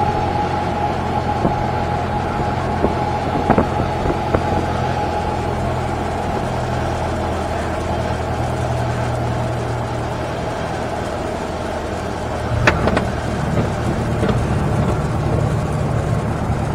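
Single-engine propeller airplane's engine and propeller droning steadily at low power, heard from inside the cabin, on final approach and landing. A sharp bump about three-quarters of the way through, as the wheels touch down, then the engine note changes.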